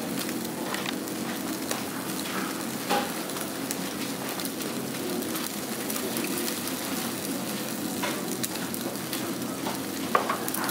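Hida beef sizzling on a wire-mesh grill over glowing charcoal: a steady hiss with scattered crackles and pops, a sharper pop about three seconds in and again near the end.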